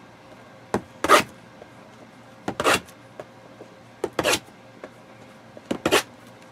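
Shrink-wrapped cardboard trading card boxes being handled and stacked on a desk: four pairs of short scraping, rustling sounds about a second and a half apart.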